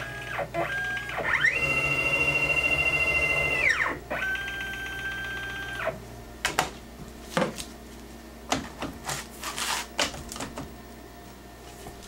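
Axis drive motors of a Techno CNC router whining through rapid moves. Three pitched tones ramp up, hold and ramp down in the first six seconds, the longest and loudest about a second and a half in. Scattered sharp clicks and knocks follow.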